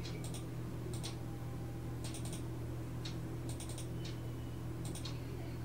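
Computer keyboard keys being pressed, single and quick runs of clicks in about six short groups, over a steady low electrical hum.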